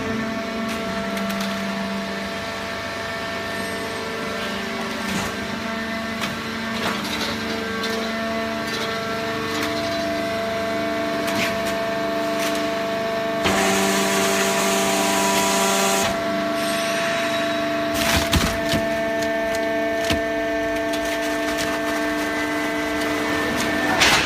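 Hydraulic horizontal baling press running while it compresses scrap newspaper: a steady hum and whine from the motor and pump under crackling and clicking, with a louder hiss for a couple of seconds midway and a few sharp knocks near the end.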